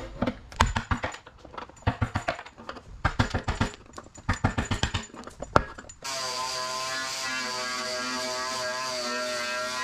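Hand scraper or chisel struck by a mallet, chipping Bondo body filler and paint off a Corvair's steel nose panel: an irregular run of sharp taps and scrapes. About six seconds in, an angle grinder with a strip disc takes over, a steady whine with a high hiss as it strips the panel.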